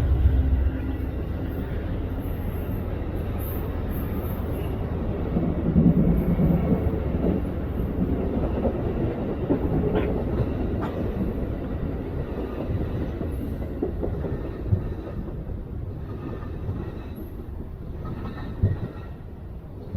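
Amtrak California Zephyr passenger train rolling past on the rails: a steady rumble that slowly fades, with a few sharp wheel clicks. A louder, deeper locomotive rumble drops away about a second in.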